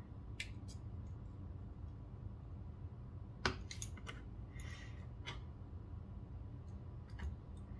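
Small metal clicks and brief scrapes of a driver bit turning a tiny screw into a Benchmade Mini Bugout folding knife's handle. There are a handful of scattered ticks, the sharpest about halfway through.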